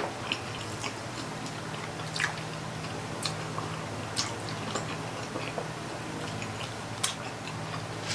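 A person chewing tender pork baby back ribs, with scattered soft smacks and clicks of mouth and lips, over a steady low hum.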